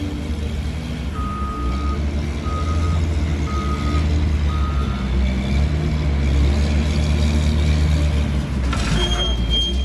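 Heavy machine engine running steadily at a low rumble while its reversing alarm beeps four times, about once a second. A short burst of noise comes near the end.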